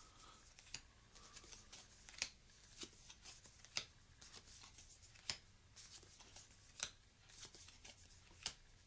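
Smooth-finished playing cards being laid one at a time onto a stack on a wooden table: a string of faint, soft card snaps and slides, roughly one a second.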